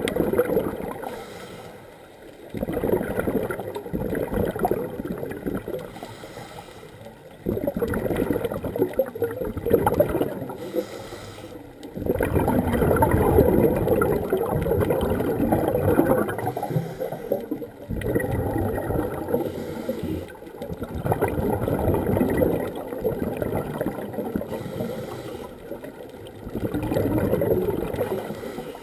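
Scuba diver's regulator breathing recorded underwater: bubbling rushes of exhaled air, each lasting a few seconds, come about every four to five seconds, with quieter inhalations in between.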